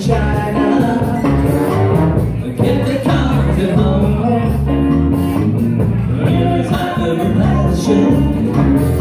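Live band playing a rock song.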